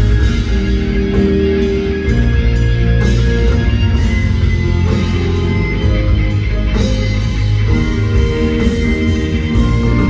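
Rock band playing loud through a stadium PA at a sound check, heard from far up in the stands of an empty stadium: electric guitar over heavy bass and drums.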